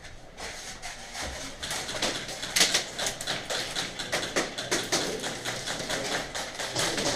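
Airsoft guns firing, rapid runs of sharp clicks and pops that grow denser about two seconds in.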